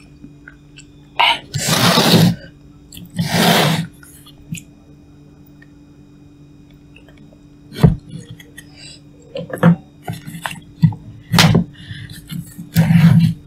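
Someone eating instant cup noodles: two long, loud slurps in the first few seconds, then a quieter stretch, then shorter slurps and chewing clicks from about eight seconds in.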